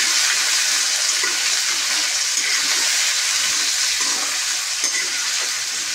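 Cubed potatoes frying in hot oil in a metal kadhai, a steady loud sizzle, stirred with a metal ladle.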